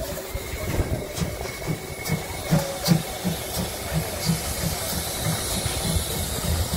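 Narrow-gauge steam tank locomotive 99 758 starting away with its train, its exhaust beating about three times a second from about a second and a half in, over a steady hiss of steam from the open cylinder drain cocks.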